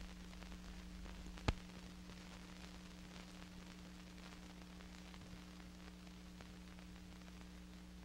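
Faint steady low hum with hiss, the background noise of an old recording with no sound of its own, and a single sharp click about a second and a half in.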